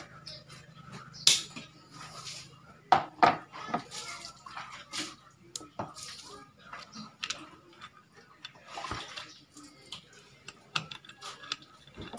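Irregular clicks, taps and clatter of small metal air rifle parts and tools being handled and fitted on a workbench, with a few sharper knocks about a second in and around three seconds in.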